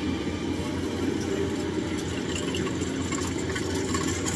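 A '95' rice combine harvester's engine running steadily under load as it cuts rain-flattened rice, with faint rattles and ticks over the drone.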